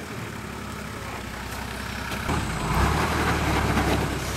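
Nissan Patrol ute's diesel engine running low and steady, then pulling harder and louder from about halfway through as the truck crawls up over boulders.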